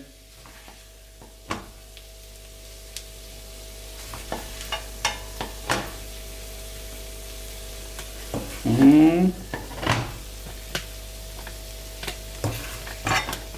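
Chicken and vegetable stir-fry sizzling in a frying pan while it is spooned out, the silicone spoon knocking and scraping against the pan and the serving dish several times. About nine seconds in, a brief pitched sound is the loudest moment.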